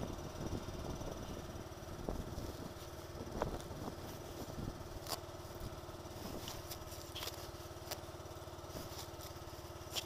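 SYM scooter engine idling steadily, with a few sharp clicks and jacket rustle as the rider moves close to the camera.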